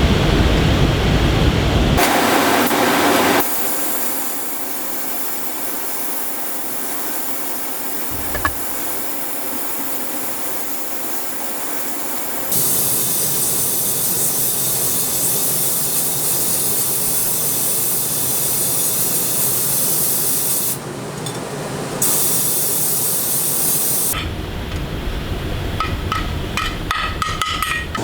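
Compressed-air spray tool hissing in several stretches, with abrupt changes where the footage is cut, and scattered clicks near the end.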